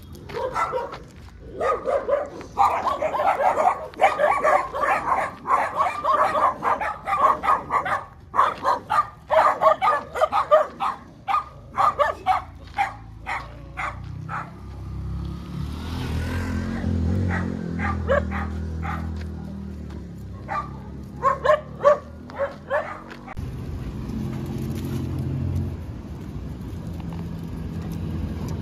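Dogs barking rapidly and repeatedly for about ten seconds. Then a motor vehicle passes with a low engine rumble, and a few more barks come near its end.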